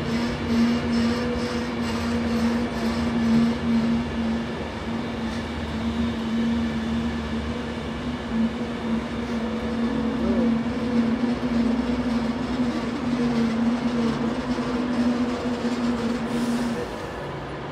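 Avanti West Coast Class 390 Pendolino electric train passing, with its wheels running on the rails and a steady low hum. The hum stops near the end as the last carriage goes by.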